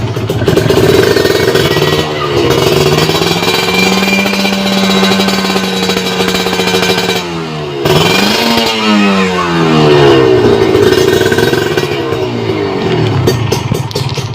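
Kawasaki Ninja 150 two-stroke single-cylinder engine through an aftermarket WRS chrome exhaust, being revved. The revs rise about two seconds in and hold high for several seconds, then drop. There is a quick blip, then another rise, and the engine falls back to a lower idle near the end.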